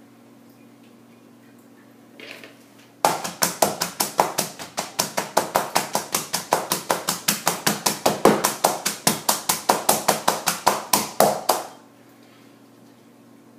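A rapid, even run of sharp clicks or taps, about six a second, starting about three seconds in and stopping abruptly some nine seconds later.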